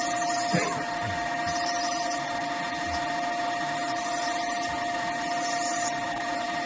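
Small CNC lathe running steadily, its spindle and drives giving a constant whine over an even machine noise, as it turns a brass part at a slow feed.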